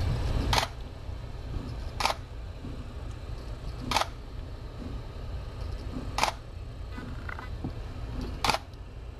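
Camera shutter sound, clicking five times about two seconds apart as pictures are snapped, over a low steady hum.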